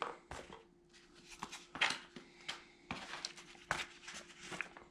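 Scattered light clicks and taps of hard plastic from handling DJI FPV flight batteries in the charging hub, which they sit in loosely without locking, over a faint steady hum.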